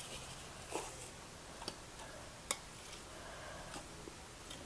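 A handful of faint, sparse clicks and taps from kitchen utensils: a spice shaker and a pair of tongs knocking lightly against chicken and a slow cooker's crock.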